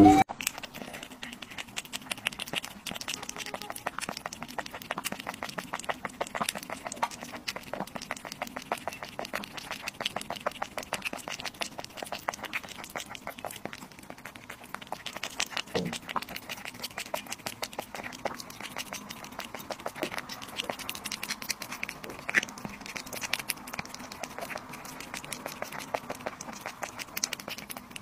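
Cats eating close to the microphone: a rapid, continuous run of small wet chewing and licking clicks, first a cat chewing raw broccoli, later a kitten lapping raw egg yolk.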